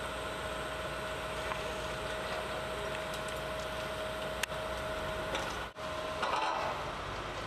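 Heavy machinery running steadily with a constant whine, with a sharp click a little after four seconds. The sound drops out for a moment about six seconds in and comes back different.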